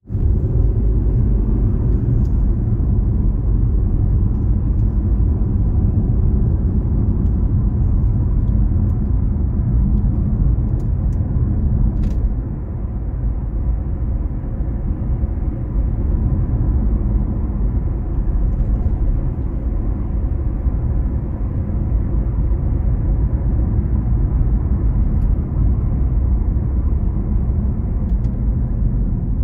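A vehicle running: a steady low rumble that eases slightly about twelve seconds in.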